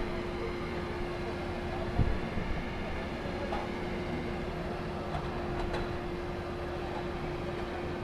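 Steady mechanical hum holding one unchanging tone over a rushing rumble, with a low thump about two seconds in.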